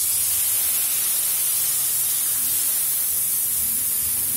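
Soy sauce hitting hot oil in a pan of frying chopped vegetables, sizzling loudly: a steady hiss that starts abruptly and holds evenly.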